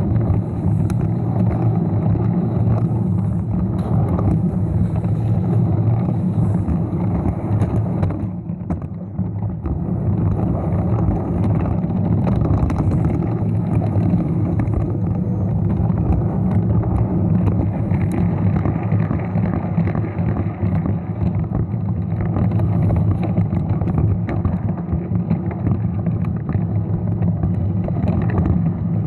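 Lego train running, its small electric motor whirring steadily, with a brief dip about eight seconds in.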